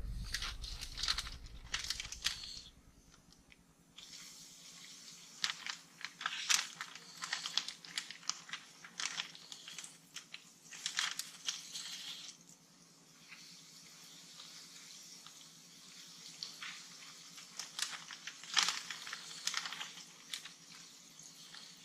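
Flour-coated walleye pieces frying in hot oil: a steady high sizzle broken by irregular crackles and pops of spattering oil.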